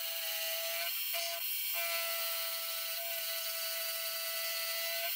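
Mini milling machine's spindle running as a carbide end mill cuts 4140 steel under flood coolant: a steady whine that falters briefly a little over a second in.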